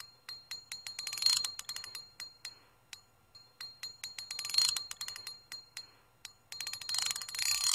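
A run of sharp metallic clicks at an uneven pace, quickening into two dense bursts, over a faint steady ringing tone. A hissing rush swells in near the end.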